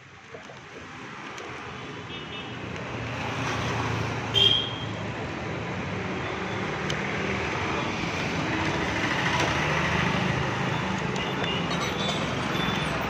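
Road traffic noise from motor vehicles passing on the street, building over the first few seconds and then holding steady. A short high-pitched beep sounds about four seconds in.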